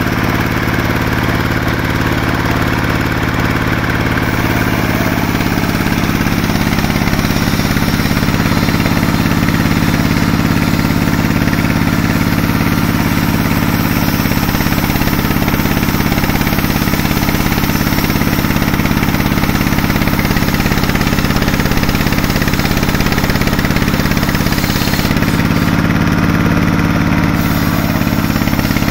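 Sawmill machinery running steadily: a loud, constant low hum with a hiss above it, shifting slightly near the end.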